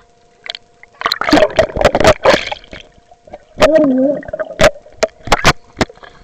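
Lake water splashing and bubbling around a small waterproof camera as it is dunked underwater, loud bursts about a second in and then sharp knocks against the camera. A short wavering tone comes about halfway through, over a faint steady whine.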